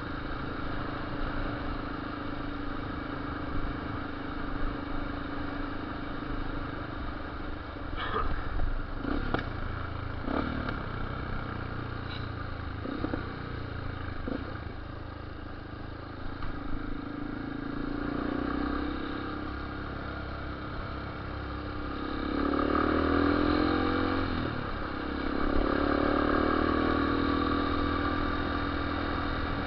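Yamaha Lander single-cylinder motorcycle engine running, its revs rising and falling several times in the second half, with a few sharp exhaust pops about eight to fifteen seconds in, the 'bangs and pops' of the exhaust.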